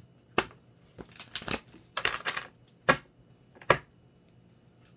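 A deck of tarot cards being shuffled by hand, with short separate riffling swishes of the cards about once a second.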